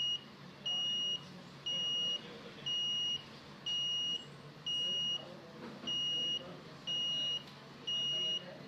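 Piezo buzzer of an Arduino alarm clock sounding the alarm: even, high-pitched beeps, about one a second, each lasting about half a second.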